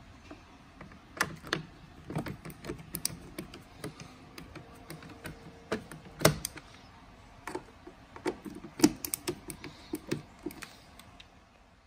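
Irregular sharp clicks and knocks of parts being handled and fitted while a refrigerator's replacement ice maker is put back in place. The loudest knocks come about halfway through and again a little later.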